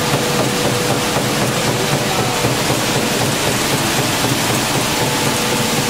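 Machinery of a refrigerator recycling plant running: a loud, steady mechanical noise with a faint constant hum, cutting in suddenly.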